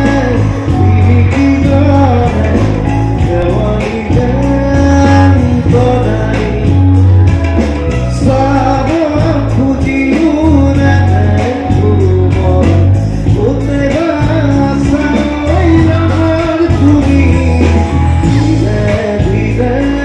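Assamese song: singing over a band with a steady drum beat and a bass line.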